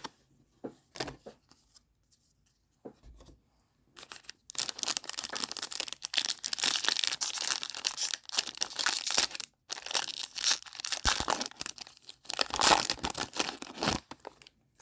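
Foil trading-card pack wrapper being torn open and crinkled by hand: a few light clicks at first, then about four seconds in a long stretch of dense crackling and tearing with brief pauses.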